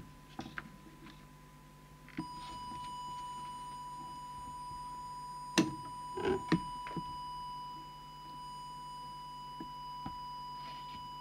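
Steady 1 kHz test tone from an audio oscillator, switched on about two seconds in: the audio signal fed to the CB transmitter for setting its FM deviation. A few short knocks sound near the middle.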